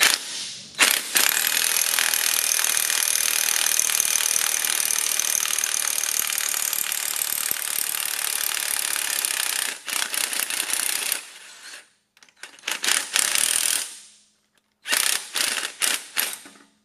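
Cordless impact wrench hammering as it drives the forcing screw of a harmonic balancer puller, pulling the press-fit balancer off an LS3 crankshaft. One long steady run of about nine seconds, then three shorter bursts.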